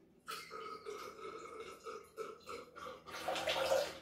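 Liquid free-poured from an upturned bottle through its pour spout into a stainless steel cocktail shaker tin, the stream gurgling in quick pulses and getting louder and rougher in the last second.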